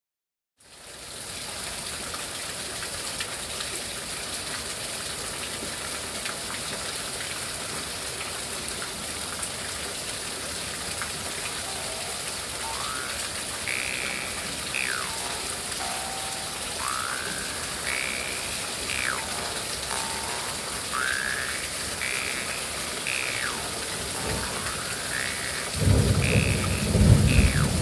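Steady rain falling, and from about twelve seconds in a Dan Moi L-size bass jaw harp played in slow overtone sweeps that rise and fall every couple of seconds. Near the end its deep bass drone comes in loud.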